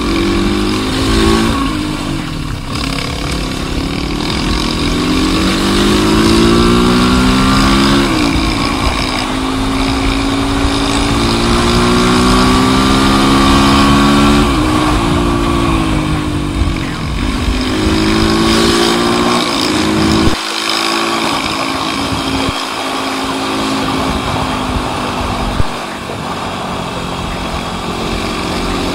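A 250 cc motorcycle engine running at full throttle, its pitch climbing and then dropping sharply at each gear change, several times over, over a steady rush of wind noise.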